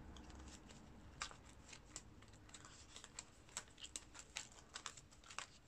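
Clear plastic pockets of a ring-bound cash envelope binder being leafed through: faint, scattered crinkles and clicks.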